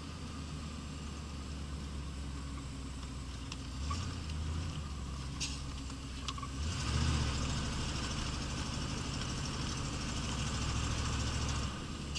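Car engine running while driving, with road noise heard from inside the car. The engine note swells about seven seconds in, as the car accelerates, and falls back just before the end.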